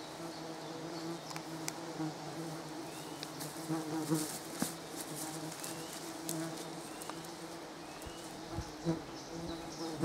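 A flying insect buzzing with a steady hum that swells and fades as it moves about, with faint short bird chirps and a few soft clicks.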